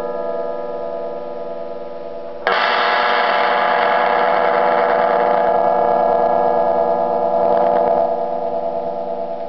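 Homemade lap steel guitar played through an amplifier: a chord rings on with a steady sustain. About two and a half seconds in, a sudden loud, bright strum comes in and is held for several seconds, then drops back to a quieter ringing near the end.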